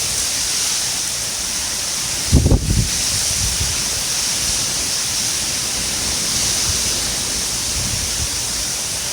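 Rain falling in a steady hiss. There is a brief low thump about two and a half seconds in.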